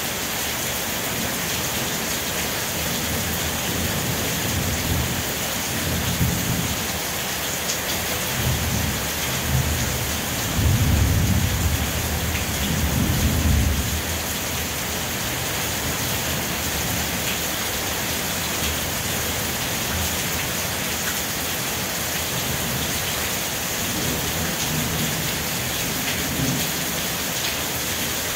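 Steady rain falling, with low thunder rumbling in several times. The longest and loudest rumble comes from about 10 to 14 seconds in.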